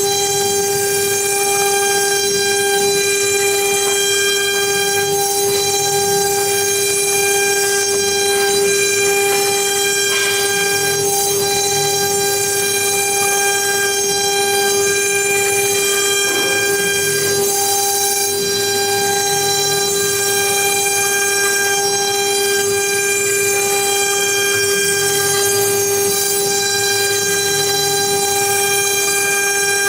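Blue Elephant CNC router running as it cuts EVA foam: a steady high-pitched whine with overtones that holds one pitch, with fainter shifting sounds from the machine's motion underneath.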